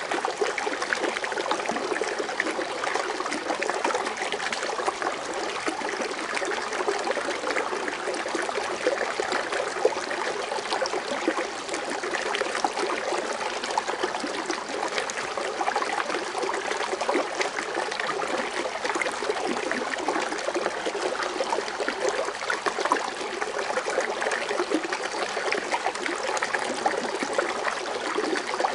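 Water fountain splashing and trickling steadily, a constant foaming rush with many small splashes.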